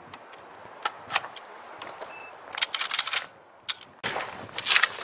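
Scattered sharp clicks and knocks, with a quick cluster a little past halfway and a louder rattle near the end.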